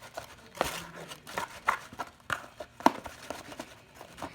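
Fluffy slime of glue and shaving cream being mixed, giving irregular sticky squelches and crackles.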